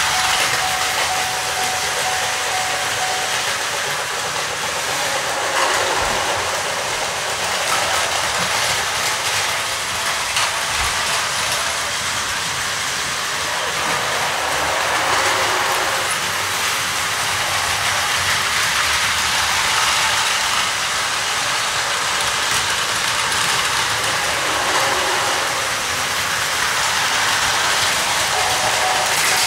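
Battery-powered Plarail toy trains running on plastic track: a steady motor whir with continuous wheel clatter. A thin steady tone sounds for the first few seconds and again near the end.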